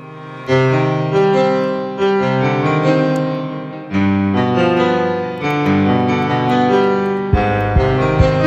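Background music: piano chords, with a steady beat coming in near the end.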